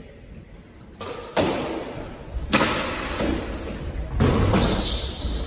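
Squash ball being hit back and forth in a doubles rally: a series of sharp cracks of racket on ball and ball on wall, roughly a second apart, with sneakers squeaking on the hardwood floor from about the middle on.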